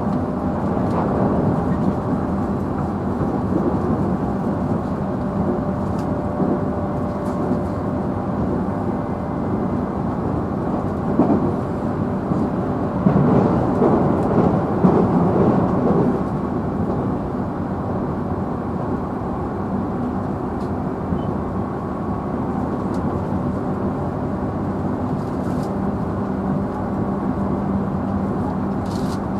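Interior running noise of a JR Central 311 series electric train's motor car at speed: a steady rumble of wheels on rail with a low humming tone from the traction motors and gears. About halfway through the rumble grows rougher and louder for a few seconds.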